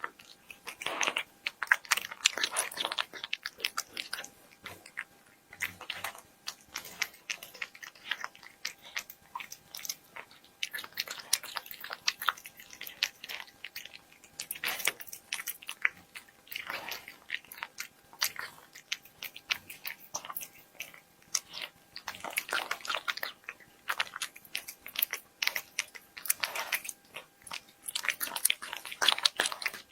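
A cat chewing crunchy food close to the microphone: wet biting and crunching in bouts of a second or two, separated by short pauses.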